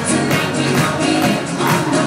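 Dance music with a steady beat.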